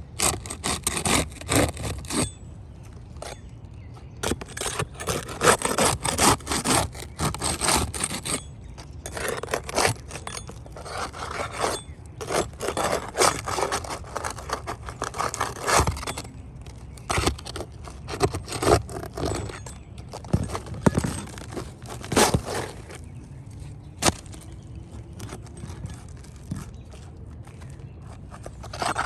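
Asphalt shingles scraping and rubbing in irregular strokes, with a few sharp knocks scattered through.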